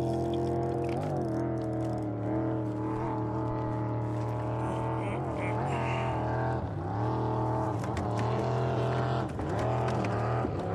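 A boat's motor running steadily, its pitch dipping and recovering a few times.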